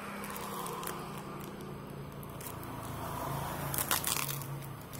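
Cardboard packaging bound in clear plastic tape being unwrapped by hand: crinkling and tearing, with a sharper burst of rustling about four seconds in, over a steady low hum.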